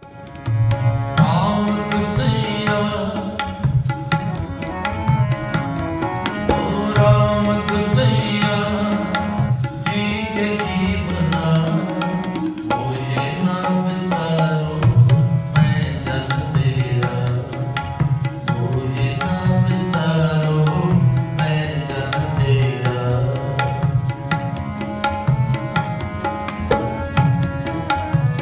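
Background music: Indian-style music with tabla drumming under a melody.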